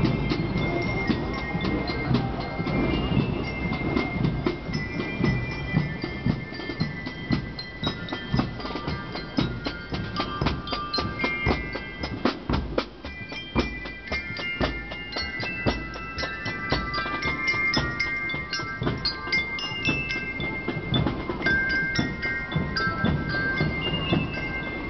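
Marching band of drums and bell lyres (marching glockenspiels) playing: steady drumbeats under a tune of short, bright bell notes.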